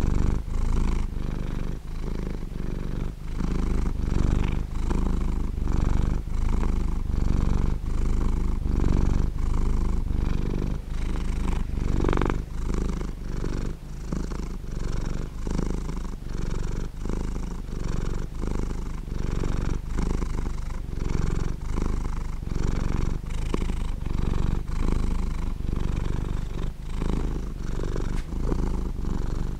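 Domestic cat purring close up: a continuous low rumble that swells and eases in a regular rhythm with each breath in and out.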